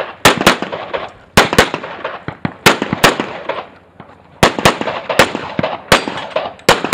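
Handgun fired rapidly in pairs of shots, two quick shots then a pause of about a second, repeated some six times, each shot trailing a short echo.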